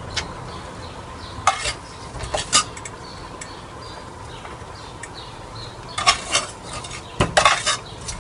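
Metal spoon stirring, scraping and clinking against the side of an aluminium pot while rice and beef are mixed together. There are a few separate clinks early on and a quicker run of them in the last two seconds.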